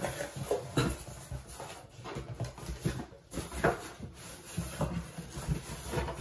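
Cardboard shipping box being handled and pulled open, with irregular rustling, scraping and knocking of the cardboard flaps.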